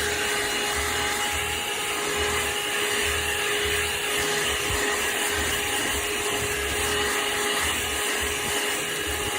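ThisWorx 12V handheld car vacuum running steadily with a constant motor whine and rushing air, while it picks up dog hair.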